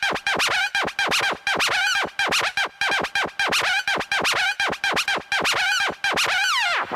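DJ turntable scratching: a record pushed back and forth in quick, rhythmic strokes, about three or four a second, each a curving swoop in pitch. A longer falling sweep comes near the end.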